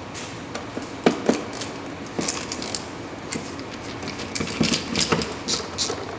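A metal pick tool working at a plastic door trim panel: irregular clicks, taps and scrapes of metal on plastic, the sharpest about a second in and a quick run of clicks near the end.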